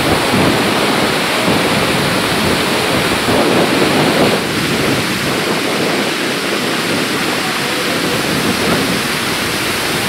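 Loud, steady rush of a tall waterfall pouring over a cliff, a dense roar of falling water with no breaks.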